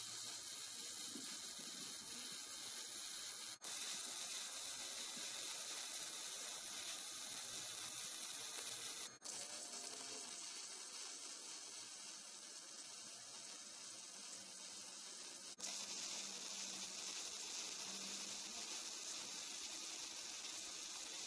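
Electric welding arc sizzling steadily while steel pieces are welded on. The sound comes in four stretches joined by sudden cuts.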